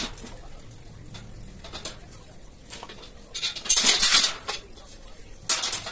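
Light metal clatter and scraping as a loose metal crossbar is handled and fitted into a metal shelf frame, in short bursts, the longest about three and a half to four and a half seconds in and another near the end.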